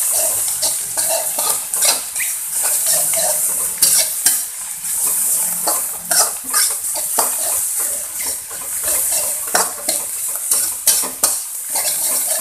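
Metal spatula scraping and clinking against a wok in irregular strokes, over the steady sizzle of egg, meatballs, sausage and ground chili spice paste frying in oil. The spice paste is being stir-fried until cooked through.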